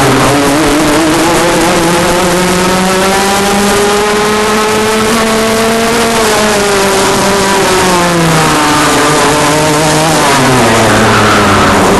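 Rotax Max 125 cc two-stroke kart engine at racing speed, heard from the driver's helmet: its pitch climbs steadily for about six seconds, falls back over the next few seconds, then climbs again near the end. A steady wind hiss over the microphone runs underneath.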